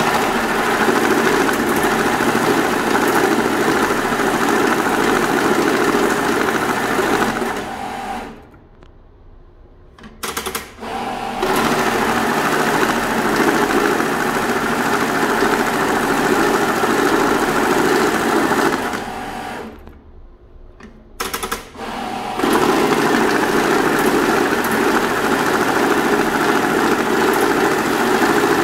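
Banknote counting machine running $100 bills through its rollers: a steady, rapid mechanical whirr and riffle of notes. It stops twice for about two seconds and starts up again each time after a few short clicks.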